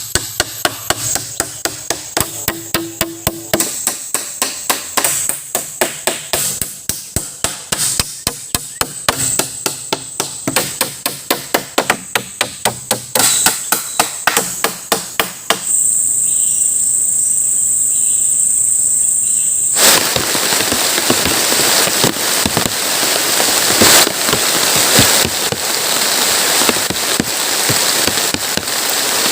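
Rapid hammering blows on wood, several a second in short runs. They stop abruptly about sixteen seconds in, leaving a steady high-pitched insect drone, and about four seconds later heavy rain starts falling as a loud, even hiss.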